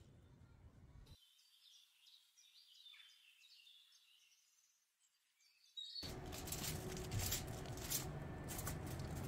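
Faint high-pitched bird chirps, starting about a second in. About six seconds in, a louder crackling and rustling of aluminium foil being handled takes over, over a low steady hum.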